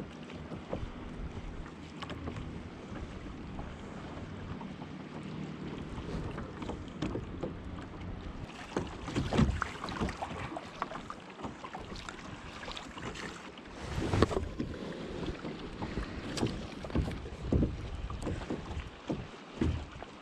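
Water lapping and splashing against a plastic sit-on-top kayak's hull, with wind on the microphone. Irregular knocks and splashes, loudest about nine and fourteen seconds in.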